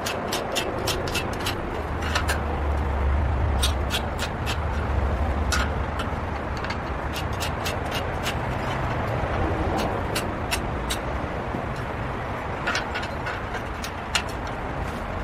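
Short light clicks and taps of a sharpened steel marking rod and a steel speed square against steel square tubing, coming in clusters, over a steady low rumble.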